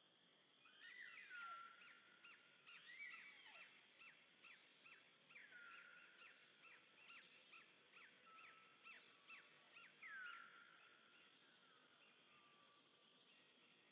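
Faint high animal calls: a quick run of short, downward-slurred chirps, about two a second, with a few longer falling notes among them, stopping about ten seconds in.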